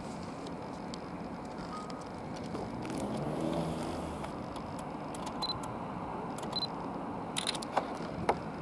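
Distant rumble of a Class 159 diesel multiple unit running as it pulls away, swelling slightly about three seconds in. Scattered short clicks of camera handling sound over it.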